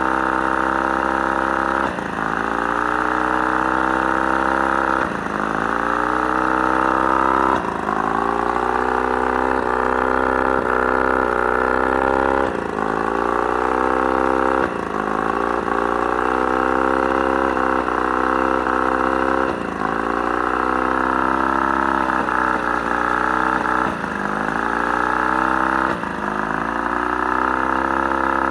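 Mercury 35 hp two-stroke outboard running, coughing every few seconds. With each cough the engine note drops sharply and then climbs back up, about eight times. The owner describes it as a random misfire that almost cuts the motor off.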